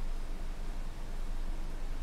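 Steady hiss with a low rumble underneath, and no distinct sounds standing out: background room or recording noise.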